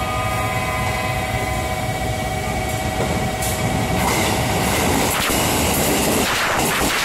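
JR Kyushu 783 series express train running through the station without stopping: its rumble builds as it nears and turns into loud rushing wheel noise as it sweeps past the platform. For the first few seconds a steady tone of several pitches sounds over it, stopping at about five seconds in.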